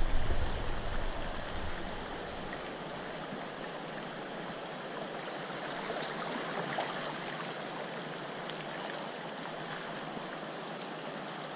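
Shallow river running over riffles: a steady rushing of water. A low rumble at the start fades out over the first two seconds.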